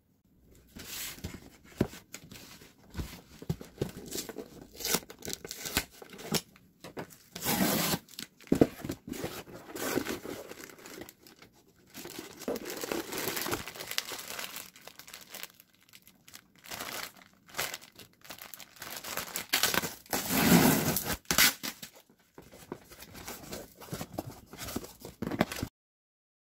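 Packing tape being ripped off a cardboard box and the box and its wrapping handled: irregular bursts of tearing and crinkling that stop abruptly near the end.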